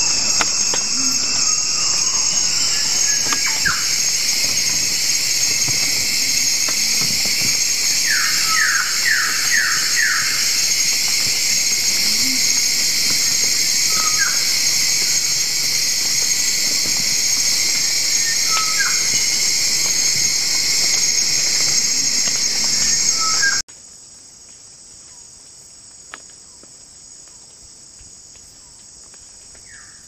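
Loud, steady, high-pitched insect chorus with scattered short bird calls, including a quick run of five falling notes about eight seconds in. About three-quarters of the way through the chorus cuts off suddenly, leaving a much quieter hiss with faint insects.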